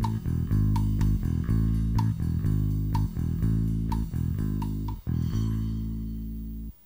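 Rock band studio recording, with bass guitar, electric guitars and a drum kit, playing a song's closing bars with repeated drum hits. About five seconds in, a final chord is struck and rings out, fading, then cuts off sharply near the end.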